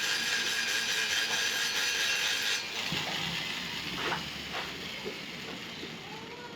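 A steady mechanical whir that cuts off suddenly about two and a half seconds in, followed by a few sharp clicks and knocks.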